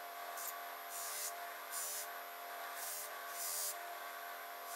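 Cloth buffing wheel spinning on its motor with a steady hum, while a metal caliper part is pressed against it. Short hissing bursts of buffing come every half second or so as the part touches the wheel.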